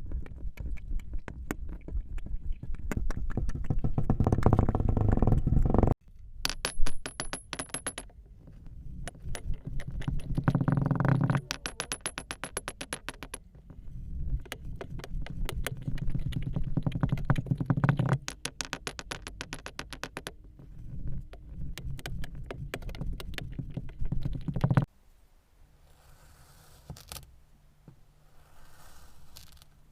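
Kinetic sand crackling as it is cut, a dense run of many small sharp clicks in several stretches that stop abruptly. It turns much quieter about 25 seconds in.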